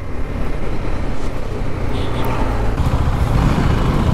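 Motorcycle engine running, heard through a helmet-mounted mic along with road and traffic noise; the rumble fills out and gets louder about three seconds in.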